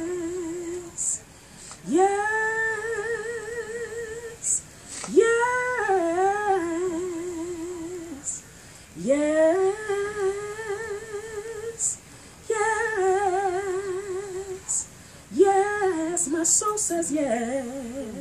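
A woman humming a slow gospel melody without words, in about six long held phrases with a wide vibrato, each starting with an upward swoop into the note.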